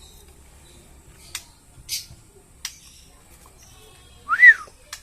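Lovebird giving a few short, sharp clicking chirps, then one louder call near the end that rises and falls in pitch.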